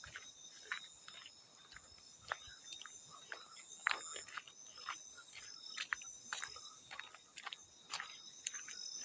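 Field crickets chirping in a steady high trill, with small water splashes and drips landing at irregular moments, the sharpest about four seconds in.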